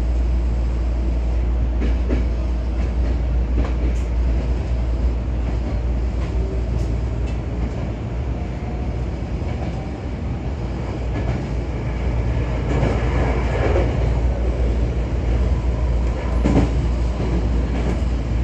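Tobu Railway express train running along the track, heard from inside the carriage: a steady low rumble with occasional clicks from the wheels over the rails.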